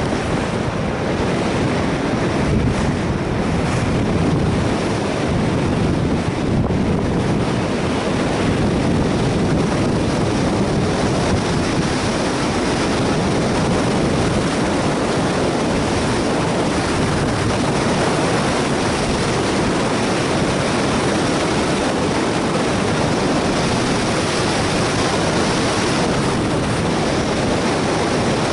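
Steady, loud rush of airflow buffeting a body-worn camera's microphone during a speedflying glide.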